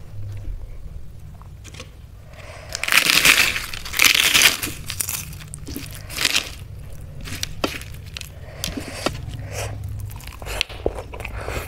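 Crisp moong dal papad being crushed by hand on a plate, crackling loudly for about two seconds and again briefly, followed by softer crunches as the pieces are mixed and eaten.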